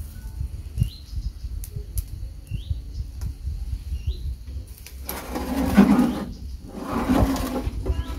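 A few short, rising bird chirps over a steady low rumble, with two loud rushes of noise about five and seven seconds in.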